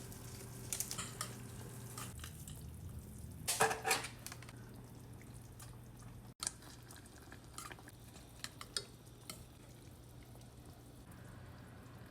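Scattered light clinks and taps of cutlery against a dish, with a louder cluster about four seconds in, over a steady low hum.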